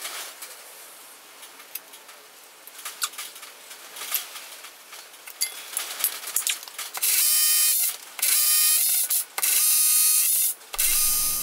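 Cordless drill boring into a concrete-block wall, its motor whining in four short runs that begin about seven seconds in. Before that, scattered light clicks and knocks of tools being handled.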